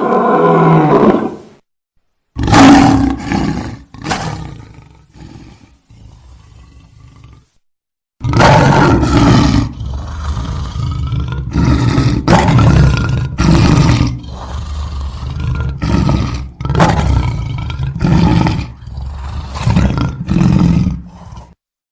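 African lion roaring: two long, loud roars falling in pitch, trailing off into softer grunts, then after a short break a long run of short grunting roars at about one a second, the typical closing series of a lion's roaring bout.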